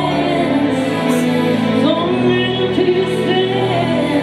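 A woman singing live into a handheld microphone over instrumental accompaniment, her melody rising and falling.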